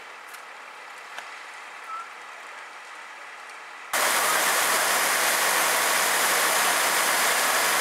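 Faint outdoor hiss with a few light clicks, then about four seconds in a sudden loud, steady rushing hiss: a firefighter's hose jet spraying water from an aerial ladder platform.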